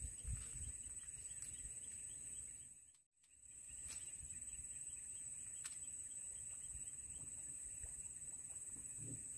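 A steady, high-pitched insect chorus with a few faint, sharp ticks. The sound cuts out briefly about three seconds in.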